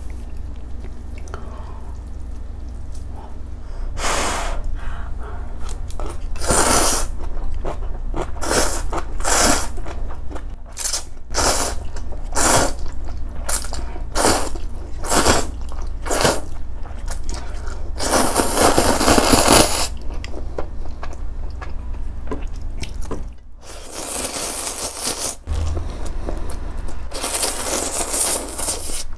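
Close-miked slurping and chewing of spicy instant ramen noodles in soup: many short slurps and mouth smacks, a long slurp of about two seconds just past the middle, and more drawn-out slurps near the end.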